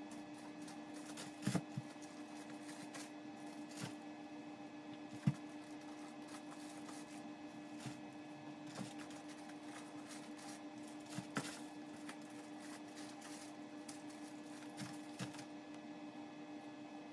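Plastic-wrapped products being handled and set into a cardboard shipping box: scattered light knocks and rustles, the sharpest about five seconds in, over a steady low hum.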